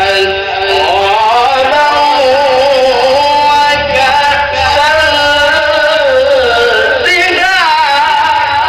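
A male qari reciting the Quran in the melodic tilawah style, holding long notes that waver with ornaments. A quick run of ornamental trills comes about seven seconds in, and then a new held note.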